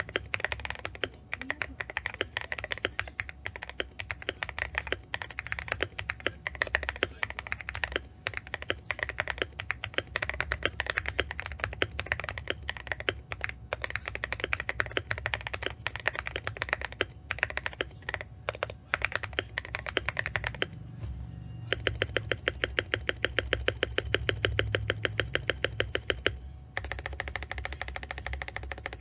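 An AKKO MOD001 mechanical keyboard with lubed tactile Jelly Pom Strawberry switches, ASA keycaps and its stock plate and foam, being typed on in an irregular run of keystrokes. About two thirds of the way in there is a fast, even run of repeated strokes lasting about five seconds, then typing carries on.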